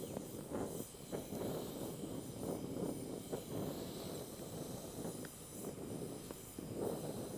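Brazing torch flame running with a steady, fluttering rushing hiss as it heats cast iron and melts bronze brazing rod.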